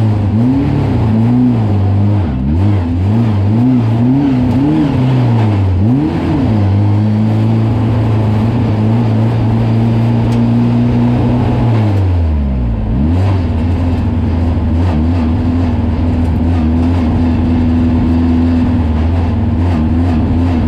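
Drag-race truck's engine heard from inside its caged cab, the revs rising and falling in a run of short swells for the first several seconds, then holding steady. About twelve seconds in the revs drop sharply and climb back, then hold steady again.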